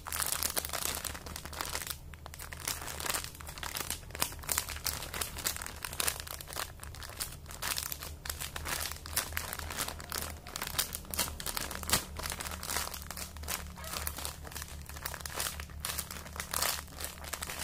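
Dense, irregular crinkling and crackling from a squishy toy being handled and squeezed close to the microphone.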